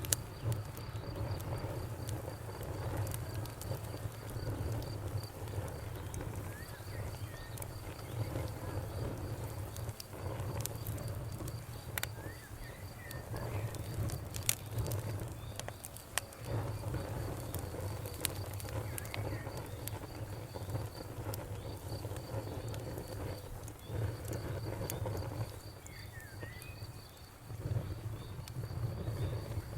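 Campfire crackling, with sharp pops here and there over a low rumble. Crickets chirp in a steady, evenly pulsing high note behind it.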